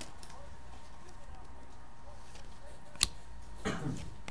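Trading cards handled by hand: one sharp snap of card stock about three seconds in, then a brief sliding rustle as the cards are spread apart.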